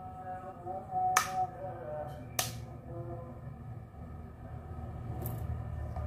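Sulphur-crested cockatoo biting into a guava: two sharp crunching clicks from its beak, a little over a second apart.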